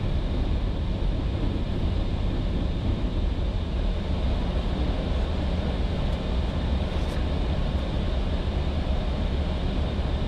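Steady flight-deck noise of an Airbus A320 in flight: the rush of airflow and engine noise, mostly a low rumble at an even level.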